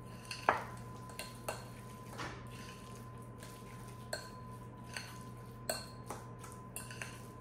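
A utensil stirring a thick ricotta and parsley mixture in a glass mixing bowl, making light, irregular clinks and taps against the glass.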